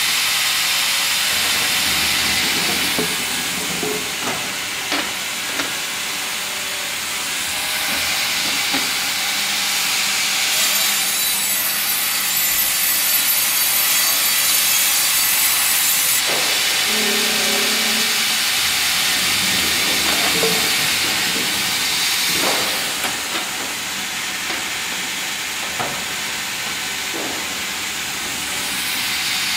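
FİMAKSAN hydraulic vertical log band saw running and cutting a log fed on a log carriage: a steady, high hiss of the blade through the wood. It eases off twice between cuts, with occasional short knocks from the machinery.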